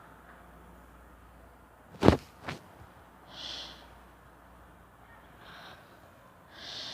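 Soft, airy breaths of a person, each about half a second long, three times, the last near the end. About two seconds in there is a sharp knock, the loudest sound, with a smaller knock just after it.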